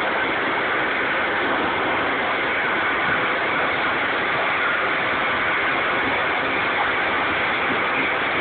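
Lawn mowing machine running steadily over grass, an even, unbroken mechanical noise.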